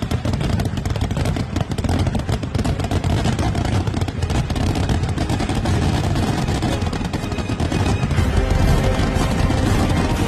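Dense fireworks barrage: firecrackers bursting in very rapid succession as a continuous crackle over a heavy low boom. Music comes in under it near the end.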